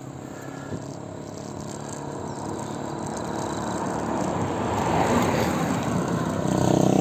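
A motor vehicle's engine approaching and growing steadily louder, loudest near the end.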